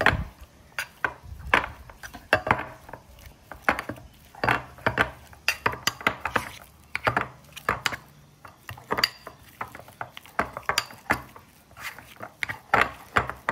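A metal spoon clinking and scraping against a ceramic bowl, with the bowl knocking on the counter, as butter, parsley and garlic are mashed together. The clicks come irregularly, several a second, with short lulls.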